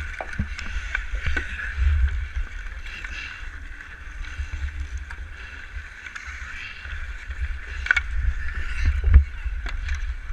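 Ice skates scraping and gliding over rough outdoor pond ice, with scattered sharp clacks of hockey sticks and puck, the loudest about eight and nine seconds in. A steady low rumble underneath from wind and motion on the player-worn camera's microphone.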